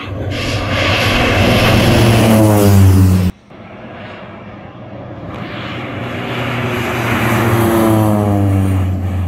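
Air Tractor AT-502 crop-duster's turboprop engine and propeller on two low passes, each growing louder and dropping in pitch as the plane goes by. The first pass cuts off suddenly about three seconds in.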